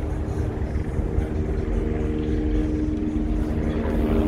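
Engine drone: a steady low rumble with a humming tone that grows stronger toward the end.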